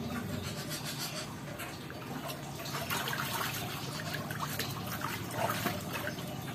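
Pond water splashing and trickling, with a run of sharper splashes in the middle.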